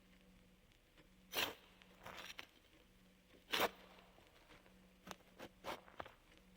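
A series of short, sharp rasping noises, about seven of them spaced irregularly over a few seconds, the loudest about a second and a half and three and a half seconds in, over a faint steady hum.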